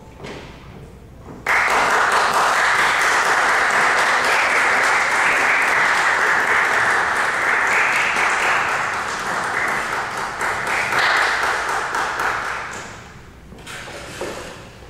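Audience applauding, starting suddenly about a second and a half in and dying away near the end.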